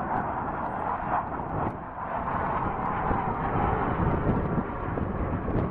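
Jet engine noise from a Sukhoi Su-30SM fighter's twin AL-31FP turbofans as it flies overhead, a steady rushing roar.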